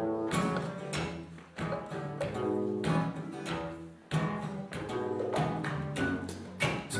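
Instrumental intro by a small acoustic folk band: acoustic guitar strummed in a steady rhythm over sustained accordion chords and a double bass line.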